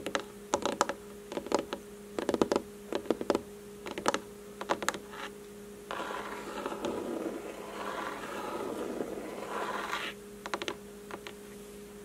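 ASMR fingernail tapping: quick clusters of light clicks, then a few seconds of scratching in the middle, then a few more taps near the end. A steady low hum runs underneath.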